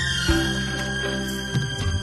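Instrumental interlude of a Hindi film song playing as background music: sustained tones over low notes that are re-struck about once a second.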